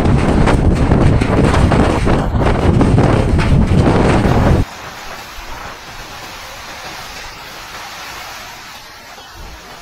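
Typhoon wind buffeting a phone microphone in a loud, rumbling roar. About four and a half seconds in, it cuts off abruptly to a much quieter, steady hiss of wind and rain.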